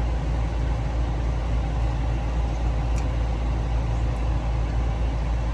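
Idling car engine and air conditioning heard from inside the cabin: a steady low hum, with one faint tick about three seconds in.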